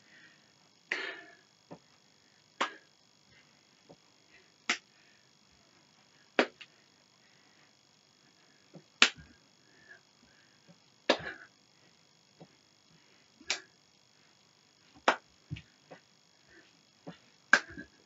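Sharp knocks and slaps from a person doing a dance workout without music, likely her feet on the floor and her hands hitting her body. About a dozen irregular hits fall roughly one to two seconds apart.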